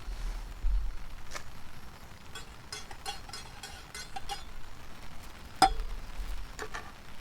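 A metal utensil clinking and tapping against camp cookware: a quick run of light clinks, some with a short ring, with one louder knock a little past halfway, over a low handling rumble.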